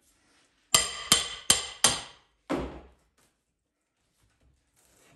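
A steel pry bar being hammered in under the edge of a cabinet to pry it loose: five sharp metallic strikes with a brief ring, about three a second, the last one softer.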